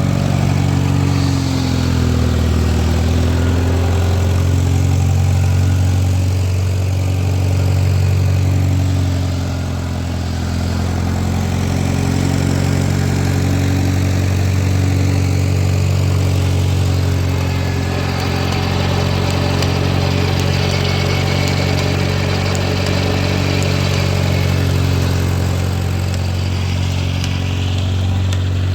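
An engine running steadily at an even pitch, with a slight dip in pitch about two seconds in.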